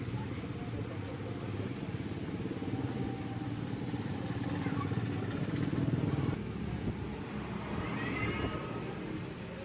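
Hero CD Deluxe motorcycle's single-cylinder four-stroke engine running, getting a little louder toward the middle and dropping back at about six seconds. The engine is noisy, which the mechanic puts down to a timing chain problem.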